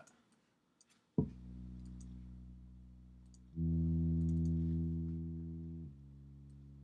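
A software synth bass in Propellerhead Reason playing back, with faint mouse clicks. A held low note starts sharply about a second in, a much louder note takes over from about three and a half to six seconds, and then the bass drops back to the softer level.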